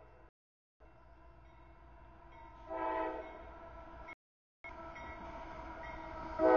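Diesel freight locomotive air horn sounding for a grade crossing as the train approaches: a short blast about three seconds in, then a louder long blast starting near the end, over a low rumble. The sound cuts out completely twice for about half a second.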